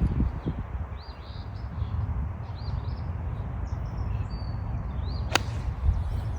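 A single sharp crack of a golf club striking the ball, about five seconds in, over a steady low rumble of wind on the microphone and small birds chirping in short rising notes.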